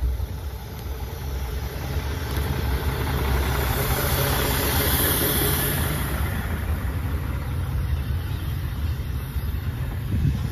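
KiHa 40 diesel railcar pulling into a station alongside and slowing, its diesel engine running with a steady low rumble. A rush of wheel and running noise swells as the railcar passes close by, is loudest about halfway through, then eases off as it draws to a stop.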